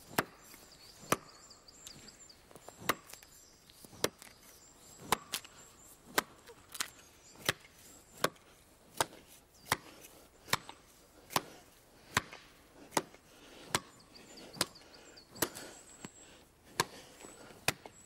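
Axe chopping into the trunk of a dry, dead-standing Scots pine: a steady rhythm of sharp blows, a little faster than one a second, as the notch is cut to fell the tree.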